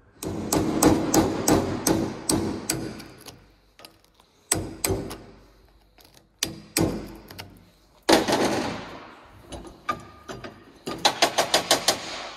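Ball-peen hammer striking a tool held against an old spark plug clamped in a vise, knocking out its tough ceramic insulator. A fast run of metallic taps, about four a second, is followed by a few single heavier blows and then another quick burst of taps near the end.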